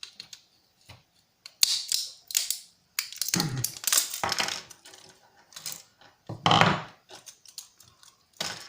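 Small hard plastic and metal drone parts clicking, cracking and clattering as a broken rotor is worked off a motor shaft with pliers and the parts are handled, with a few louder bouts of scraping and rattling.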